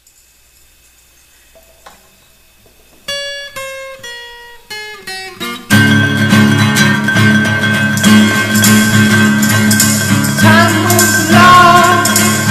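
Background music with a guitar-like sound: a short run of single plucked notes stepping down in pitch, then the full arrangement comes in loudly about halfway through.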